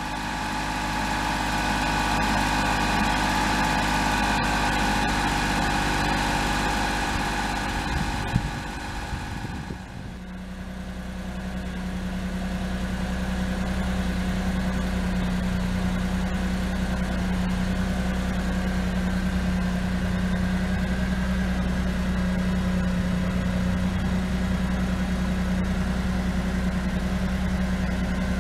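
Mitsubishi Minicab kei truck's carbureted three-cylinder 3G83 engine running steadily after its failed fuel pump was replaced. About ten seconds in, the sound changes to a steadier, lower hum.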